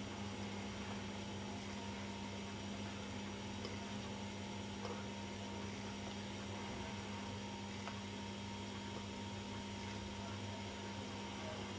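A steady low hum with a hiss behind it, unchanging throughout, with no distinct events.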